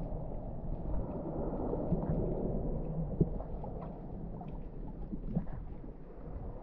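Muffled underwater ambience in shallow surf: a steady low rumble of moving water with scattered faint clicks and crackles, and one sharper knock about three seconds in.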